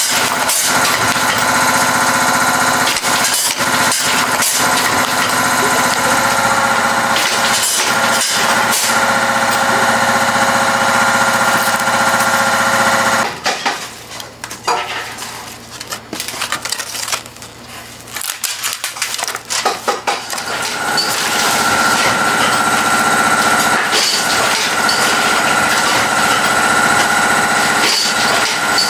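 Factory packaging machine for polystyrene natto trays running with a steady hum and repeated clacks. About thirteen seconds in, it gives way to quieter scattered clicking and rattling. The steady machine noise returns about eight seconds later.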